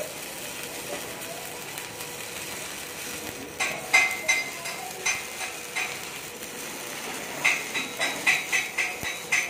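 Shielded metal arc (stick) welding arc burning on a steel pipe joint. It holds a steady hiss at first, then breaks into an uneven frying crackle of sharp pops about three and a half seconds in, and again near the end.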